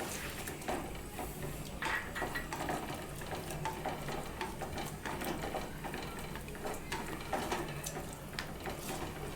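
Spoon stirring thick onion gravy and coconut milk in a cooking pan, making irregular soft scrapes.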